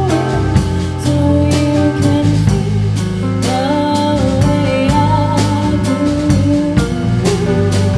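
Live band playing a song: a woman singing into a microphone, holding long notes, over electric guitar, electric bass and a drum kit keeping a steady beat.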